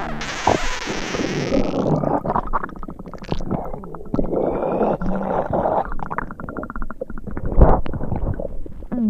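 Sick-stomach sound effect: a long, irregular gurgling rumble with crackling clicks, with a hiss falling in pitch over the first two seconds and a louder low thud about three quarters of the way through.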